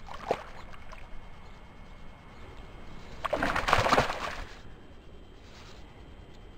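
A hooked trout thrashing and splashing at the water's surface, with a short splash at the start and a longer, louder burst of splashing about three seconds in.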